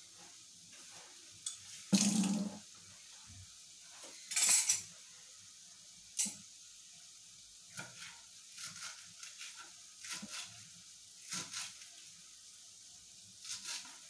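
Kitchen knife chopping fresh green herbs on a wooden chopping board, in short runs of sharp knocks in the second half. A louder clatter comes about two seconds in, and a brief hissing rustle a couple of seconds after it.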